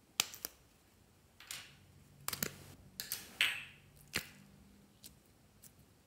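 A small plastic slime container is worked open by hand with a few sharp clicks, then soft yellow slime is pulled out of it with short sticky squelches and crackles. The last sharp click comes about four seconds in.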